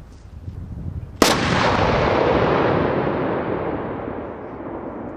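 A demolition charge detonates about a second in: one sharp blast, then a long rolling rumble that slowly dies away over several seconds.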